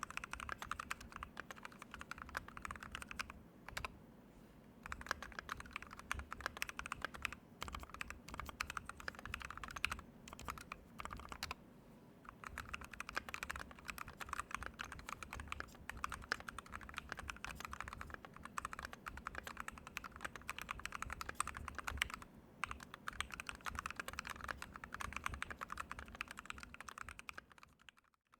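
Fast typing on a KBD67 MkII mechanical keyboard with lubed Tealios V2 linear switches, a brass plate and high-profile keycaps: a dense run of keystroke clacks with a few brief pauses. It stops abruptly just before the end.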